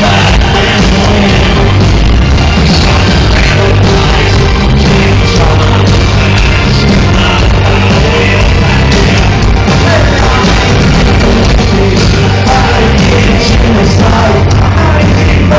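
Live industrial band playing loud music with a heavy, throbbing bass. It is recorded on a phone in a concert hall, so the sound is overloaded and flattened at a constant level.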